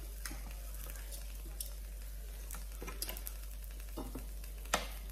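Meat skewers sizzling steadily on an electric grill plate, with a few sharp clicks of metal tongs against the grill. The loudest click comes near the end.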